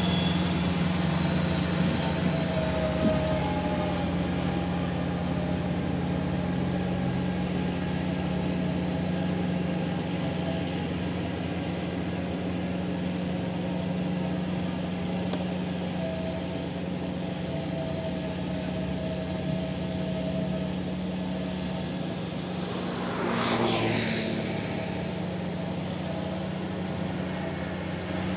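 Diesel tractor engines running steadily under load while rotary tillers churn a flooded rice paddy, a continuous low drone. About 23 seconds in, a brief louder rushing swell passes.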